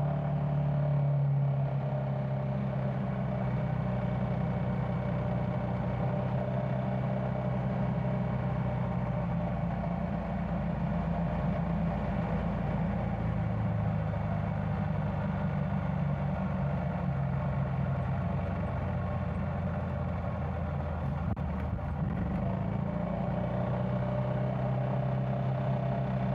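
Yamaha Tricity 300 scooter's engine running steadily while riding at cruising speed, with wind and road noise. The engine note drops slightly and recovers a couple of times as the speed eases.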